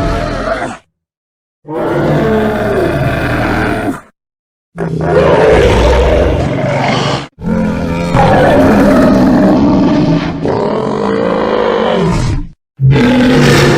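A series of low, growling dinosaur roar sound effects, made from Iguanodon and Triceratops calls. A call is ending as the stretch opens, then new calls start at about 1.5, 5, 7.5 and 13 seconds in, with brief silences between them. The call beginning around 7.5 seconds is the longest, at about five seconds.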